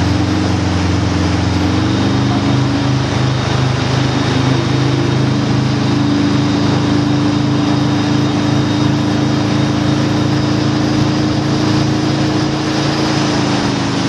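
Tow boat's engine running steadily at towing speed, its note shifting slightly about two seconds in, over the rush of the boat's wake.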